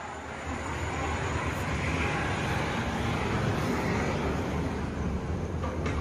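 Steady rushing noise with a low hum underneath.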